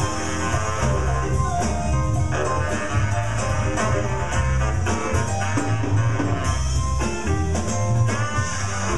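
Live band playing: electric guitar over drum kit, bass and keyboard.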